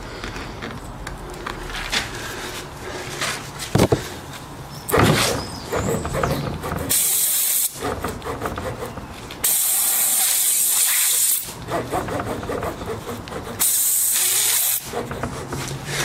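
Air hissing out of the punctured scooter tyre in three sharp bursts as the plug tools are worked in and out of the hole, between knocks and rustles of the tools being handled.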